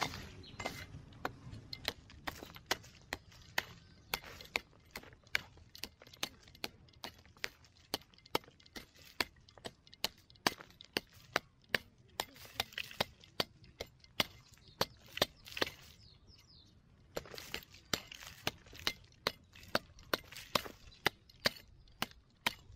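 A short-handled metal digging tool striking and chopping into hard, dry, clumpy soil at about two to three blows a second, with a short pause about two-thirds of the way through.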